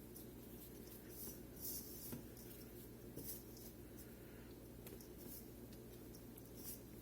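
Faint, soft scratching and rustling of chicken thighs being pressed and tossed in a bowl of dry seasoned flour breading, in short, scattered strokes over a steady low hum.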